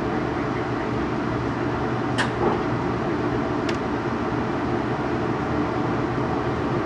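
Inside a Taiwan Railways TEMU2000 Puyuma electric multiple unit moving slowly through a station: a steady low running rumble and hum of the car. Two short sharp clicks sound about two and three and a half seconds in.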